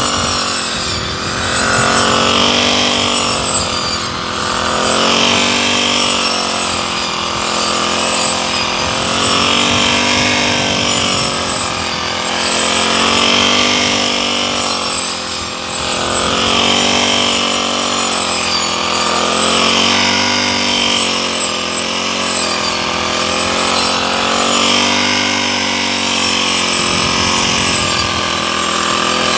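Petrol brush cutter running while cutting thick grass, its engine pitch rising and falling every two to three seconds as the blade bites in and frees.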